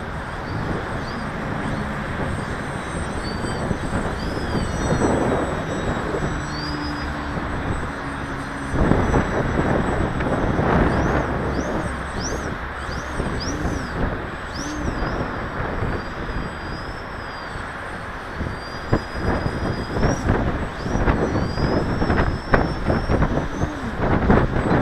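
Wind buffeting the microphone in gusts, with the faint whine of a small radio-controlled model airplane's motor rising and falling in pitch as it flies overhead.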